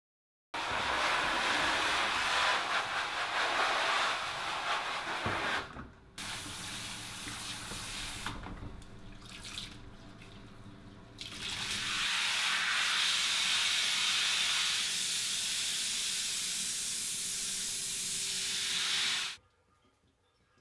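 Water running hard from a tap or spray hose with a steady hiss and splashing as blue printing ink is washed off. It is quieter and more uneven for a few seconds in the middle and stops abruptly near the end.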